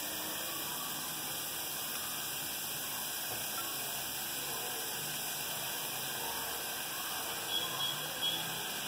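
Steady low hiss with a faint hum, and a few faint light sounds near the end.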